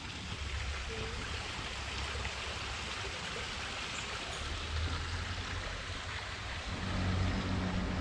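Small forest waterfall running low, its thin flow trickling and splashing steadily into a small stream; the flow is weak because it has not rained much. A low rumble comes in toward the end.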